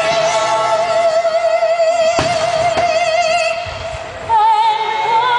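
Operatic singing over music: one long held note with wide vibrato, moving up to a higher held note about four seconds in. A faint firework bang comes about two seconds in.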